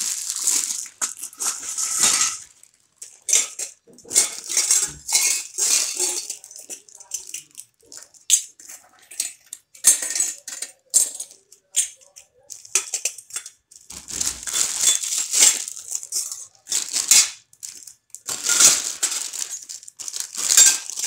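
Thin plastic bags crinkling in irregular bursts as small silver pooja vessels and lamps are handled and slipped into them, with light clinks of metal against metal.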